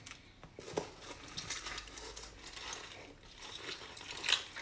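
A lemon half pressed and twisted by hand on a plastic citrus reamer, making faint wet squishing and rubbing, louder near the end. There is a light knock about a second in.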